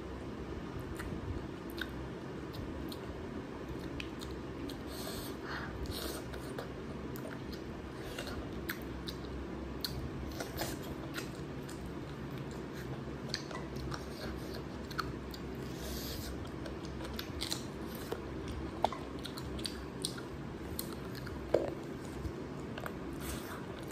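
Close-up chewing and mouth sounds of a person eating curry and rice by hand, with many short, scattered clicks, a few sharper ones in the last third, over a steady low hum.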